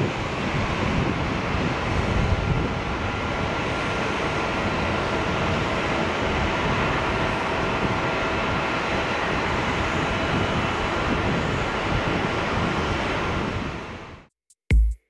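Boeing 787-9 jet engines at takeoff thrust as the airliner climbs away: a steady rushing jet noise with a deep rumble and faint steady whine tones. It fades out near the end, and electronic music with a drum-machine beat starts just before the end.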